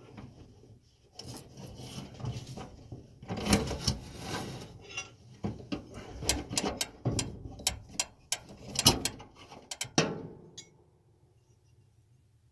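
Metal and plastic parts and tools being handled inside a dryer cabinet: irregular knocks, clicks and scraping that stop about ten seconds in.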